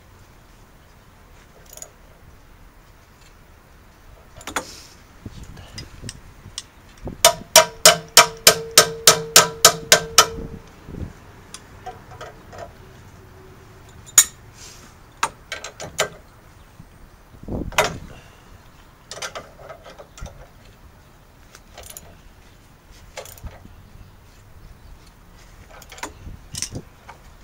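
Metal hand tools and fasteners clicking and knocking: a run of about a dozen sharp, evenly spaced metallic clicks, about four a second, lasting some three seconds, then scattered single clicks and knocks.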